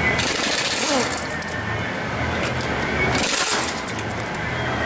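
Pneumatic impact wrench with a 21 mm deep-well socket hammering lug nuts off a truck's front wheel, in two short bursts of air hiss and rattling: one about a second long at the start, a shorter one about three seconds in.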